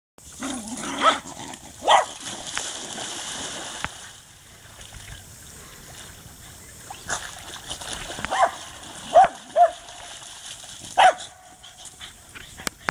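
Dogs barking in play: about six short barks, two near the start and four more in the second half, with some water splashing.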